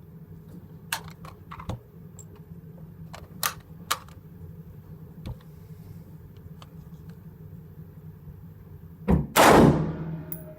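A single loud shot from a 5.56 AR-15 rifle near the end, with a faint ringing tone lingering after it. Several faint sharp clicks come before it.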